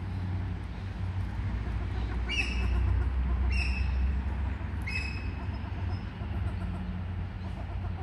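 Three short, slightly rising calls from Australian wood ducks, about two, three and a half and five seconds in, over a steady low rumble.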